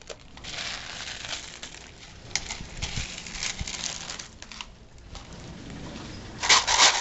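Dried beans rustling and rattling in a plastic tub as they are stirred and scooped with a plastic cup. A denser, louder rush of beans comes near the end.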